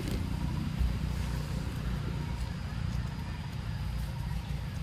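A steady low rumble with no distinct events, and a faint thin hum higher up.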